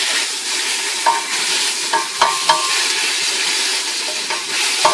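Raw chicken pieces sizzling in hot olive oil in a stainless steel pot, a steady hiss, with a few ringing metal clinks against the pot, the sharpest about two to two and a half seconds in.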